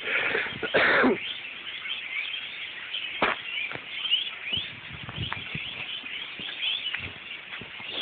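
A large flock of birds chirping and calling all at once, a dense chatter that goes on throughout. A brief loud noise about a second in stands out above it.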